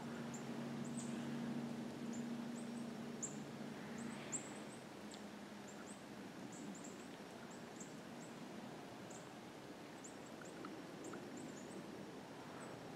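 Faint, very high, thin chirps of small songbirds, scattered every second or so over a quiet background hiss. A low steady hum fades out about four seconds in.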